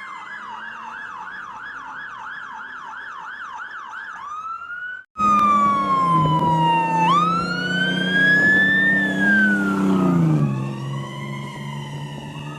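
Toy fire truck's electronic siren: first a fast warble of about three falling sweeps a second, then, after a brief break, a louder slow wail that falls, rises and falls again over a low hum.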